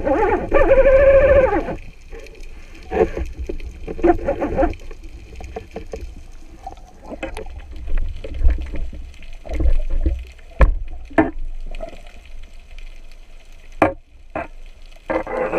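Water gurgling, heard as if underwater, with scattered sharp clicks and knocks over a low rumble. A short pitched gurgle comes about half a second in.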